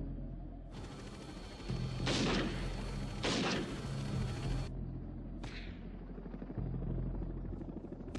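Rifle shots fired from a helicopter: two loud shots about a second apart, then a fainter third one. Helicopter noise and background film music run underneath.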